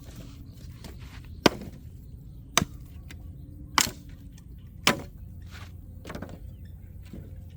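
Four sharp chopping strokes about a second apart, a blade striking something solid, followed by a few lighter knocks.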